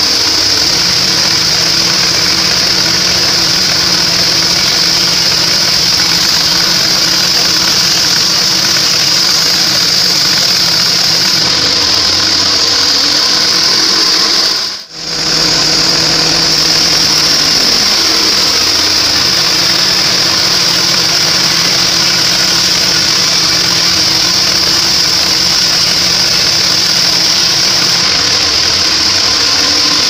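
Band sawmill blade running and sawing through a trembesi (rain tree) log: a steady high whine over a low motor hum. The sound dips out briefly about halfway through, then carries on the same.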